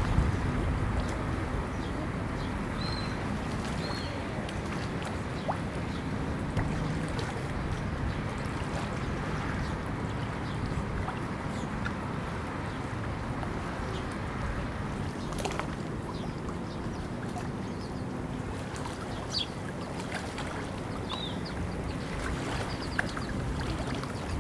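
Steady low motor hum with water and wind noise, as aboard or beside a small motorboat on a lake. A few faint, short high chirps come and go.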